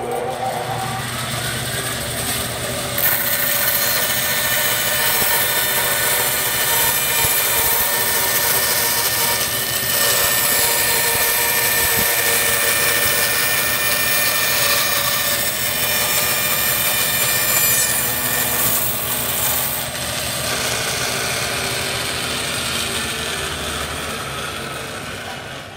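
Bandsaw running with its blade cutting a long, shallow scarf bevel along a wooden chine strip held in a jig. The cutting is loudest from about three seconds in until about twenty seconds, and the sound fades away near the end.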